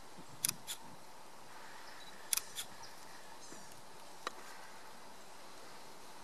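Camera shutter clicks: two quick pairs of sharp clicks, then a single click, over a steady outdoor background hiss.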